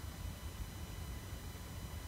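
Uneven low rumble of wind buffeting the microphone, with faint steady high-pitched tones above it and no distinct event.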